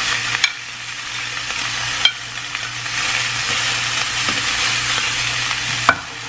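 Diced pre-cooked fajita chicken sizzling steadily in hot oil in a frying pan, with a few sharp clicks.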